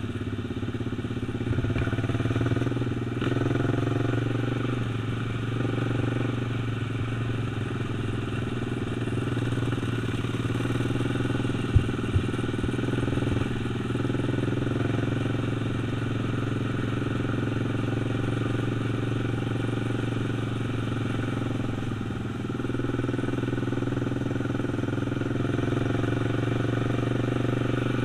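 ATV engine running steadily at light cruising throttle, its note lifting slightly about two seconds in and again later on. Two sharp knocks come about halfway through.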